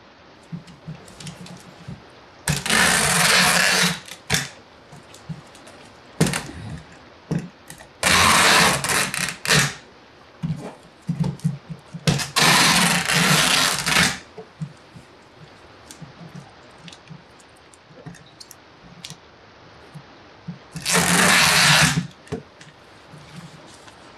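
Packing tape being pulled off a handheld tape-gun dispenser onto a cardboard box: four long, loud, noisy pulls of about a second and a half each, with light taps and rustles of the tape being pressed down in between.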